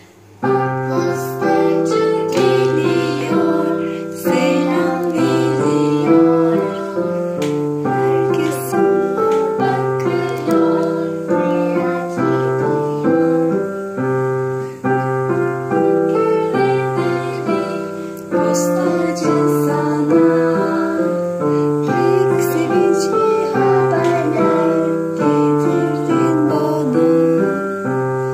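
Digital piano played as a duet by two players, a simple tune over a repeating bass line, starting about half a second in.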